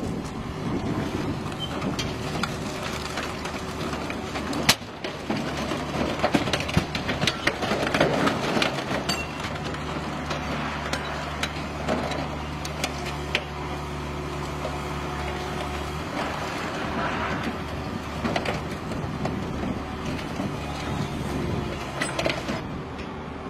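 Mobile car crusher's engine and hydraulics running steadily while the press plate comes down on a car, its body crunching with many sharp cracks and snaps as it is flattened. One loud crack stands out about five seconds in.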